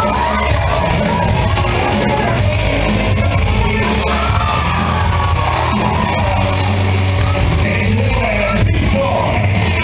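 Loud rock music with singing, and people shouting over it.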